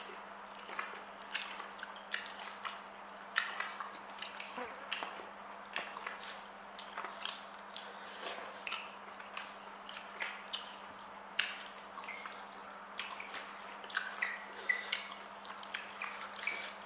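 Close-up eating sounds: wet chewing, lip smacks and small mouth clicks at irregular spacing, several a second, from people eating octopus and rice. A steady low hum runs underneath.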